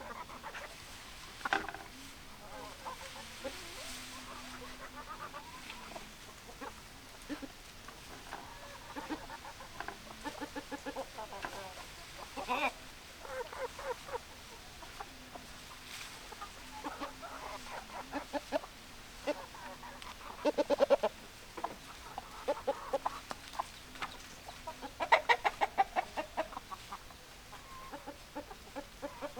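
Domestic hens clucking, in quick runs of short clucks, with louder bursts of clucking about two-thirds of the way through and again near the end.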